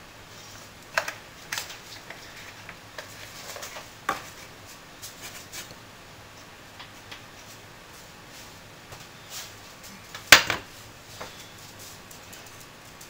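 A few light clicks and knocks of a small nonstick frying pan being handled on an electric coil stovetop, with one louder clank about ten seconds in as the pan is set back down on the burner.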